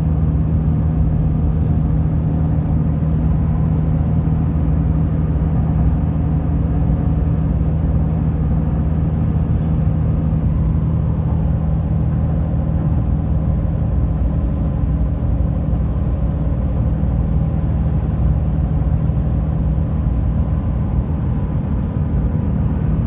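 Steady road and engine drone of a moving car heard from inside the cabin, with an even low hum.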